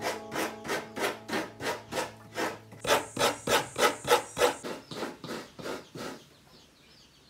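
A half coconut scraped by hand against a coconut grater, shredding its white meat in even strokes of about four a second; the scraping stops about six seconds in.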